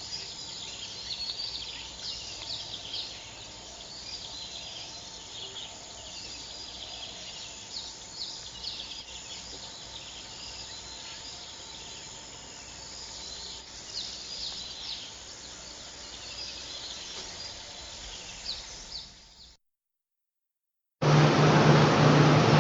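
Many small birds chirping and twittering over a faint steady background hum. About nineteen seconds in the sound cuts out to silence, and a second later a much louder steady rushing noise with a deep hum begins.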